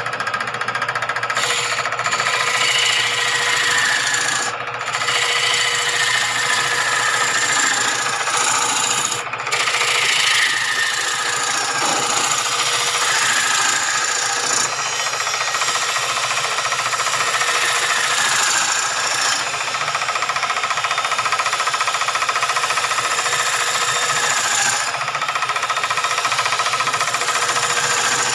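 A large wooden bowl blank being turned on a belt-driven electric wood lathe: the turning tool cutting into the spinning wood with a continuous rasping hiss over the steady hum of the motor. The cutting noise drops briefly twice as the tool eases off.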